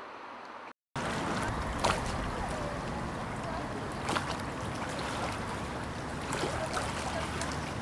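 A steady hiss that cuts off under a second in, then a louder outdoor rush of wind and water with a few short, sharp chirps from small birds.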